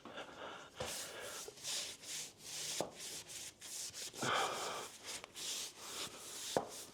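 Hand tool or sandpaper rubbing and scraping over a set cornice-cement patch on drywall: a series of rough strokes about once a second, with a few sharp clicks.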